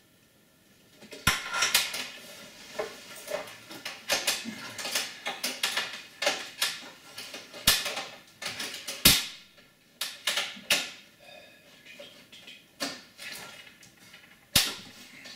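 Metal clicks, knocks and clatter of hands fitting a PCI SATA controller card and its bracket into an open computer case's metal chassis. The clatter starts about a second in, is busiest in the first two-thirds, and ends with a single sharp knock near the end.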